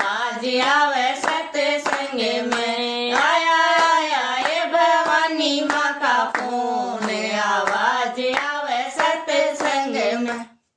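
A woman singing a Hindi devotional bhajan with steady hand claps keeping the beat. It cuts off suddenly near the end.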